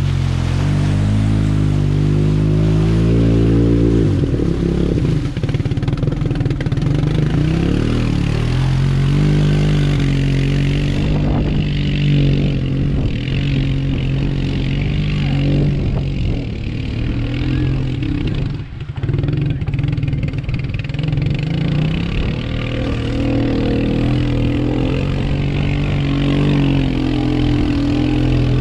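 Off-road vehicle engine revving hard and held at high revs while pulling through a mud drag, with a short drop in level about two-thirds of the way through.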